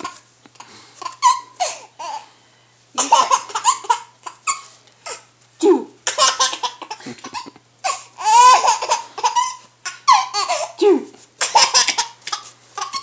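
A baby laughing hard in repeated fits, a second or so apart, with a long high squeal of laughter about eight seconds in, while an adult makes breathy noises into a cardboard paper towel tube held to the baby's mouth.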